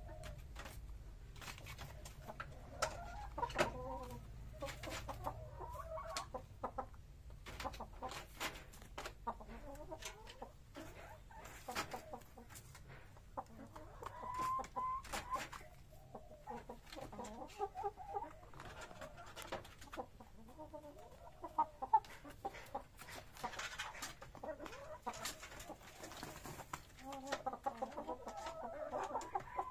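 Chickens clucking in short bouts every few seconds, with many scattered sharp clicks and taps between the calls.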